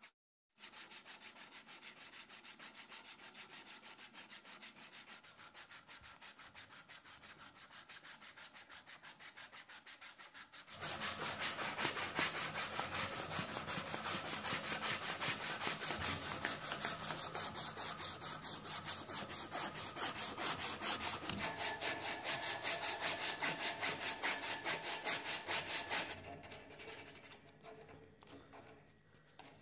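A strip of sandpaper pulled rapidly back and forth around a wooden handle, shoeshine-style, making a quick, even rhythm of rasping strokes. The strokes get clearly louder about a third of the way in and softer again near the end.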